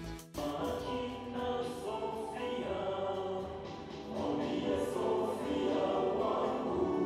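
A small group of men singing together into handheld microphones, several voices at once in a choir-like sound.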